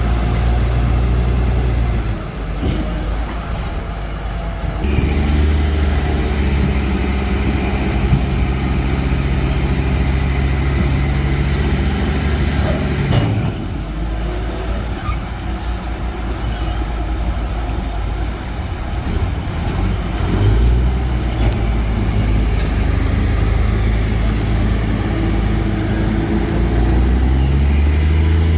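Heavy diesel engine running under varying load. Its low hum steps down about two seconds in, comes back up a few seconds later, eases around the middle and rises again twice near the end.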